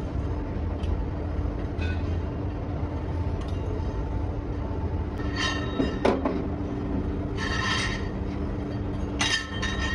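Steady workshop machinery hum, with steel rotavator blades clinking and ringing against each other several times in the second half.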